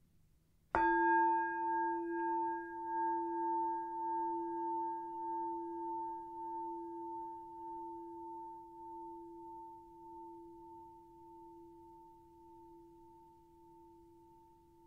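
A singing bowl struck once, about a second in, then ringing on with a low tone and a higher one that pulse in loudness as the ring slowly fades.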